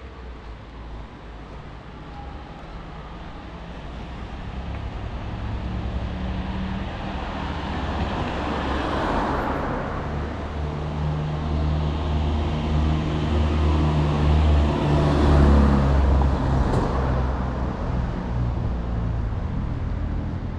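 Road traffic: vehicles drive past close by, the loudest passes about nine and fifteen seconds in, over a low engine hum that builds through the middle.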